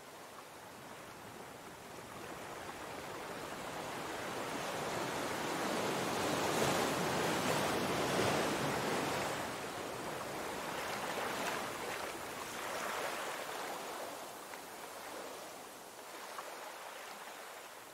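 Ocean surf breaking and washing over shore rocks: a steady rush that swells to its loudest about six to nine seconds in, then ebbs with a few smaller surges.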